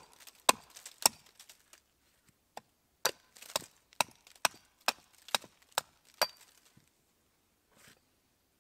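Small 600 g Urnieta forest axe chopping into a split piece of wood held upright on a stump, hewing it flat into a board: sharp strikes about two a second, a short pause after the first three, and the chopping stops about six seconds in.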